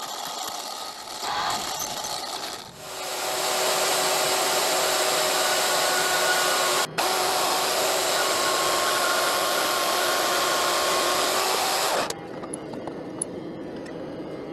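A workshop power tool runs loudly and steadily, a rushing hiss with a faint motor whine, from about three seconds in until it cuts off suddenly near twelve seconds. Before it, a quieter machine runs while a drill bit works into steel plate on a benchtop mill; after it come a few light metal clinks.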